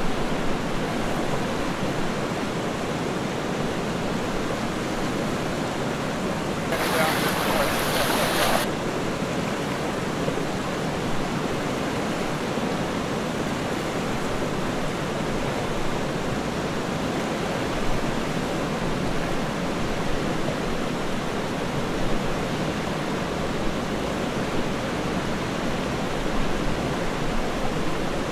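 Steady rush of a fast-flowing river, an even hiss with no clear breaks. About seven seconds in it turns louder and hissier for about two seconds, then settles back.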